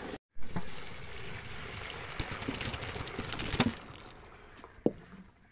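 Water running as boiled tapioca and its cooking water are poured from a pot into a strainer to drain, a steady splashing wash that tails off after about three and a half seconds. There are two sharp knocks, one as it fades and another about a second later.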